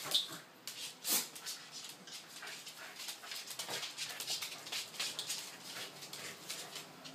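Two Pembroke Welsh corgis play-fighting: dog noises mixed with a rapid scatter of short clicks and scuffs on a hard floor, loudest about a second in.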